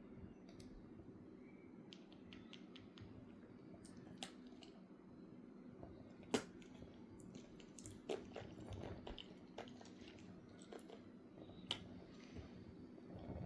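Faint scattered clicks and light metallic knocks from handling a Tilley paraffin pressure lamp's parts, with a quick run of small ticks about two seconds in and one sharper click about six seconds in, over a low steady hum.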